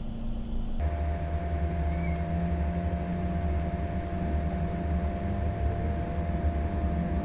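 Steady low machine hum with a steady whine above it, shifting abruptly to a louder, fuller hum about a second in.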